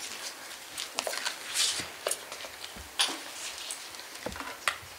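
Scattered small knocks and clicks of a person moving about and handling things on a hard floor, with a brief hiss-like rustle about one and a half seconds in.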